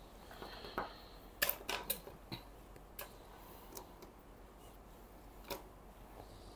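A few short, sharp clicks and taps at irregular intervals, a quick cluster of them about a second and a half in, over quiet room tone.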